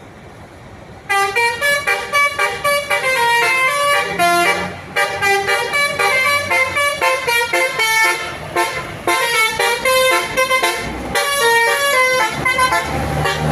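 Basuri 'telolet' multi-trumpet bus horn playing a fast melody of short, quickly changing notes, starting about a second in. A low rumble joins near the end.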